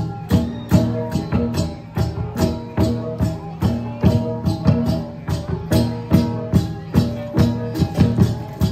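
Central Highlands cồng chiêng gong ensemble playing: hand-held hanging gongs struck in a steady, interlocking rhythm, each sharp strike leaving several pitched tones ringing under the next.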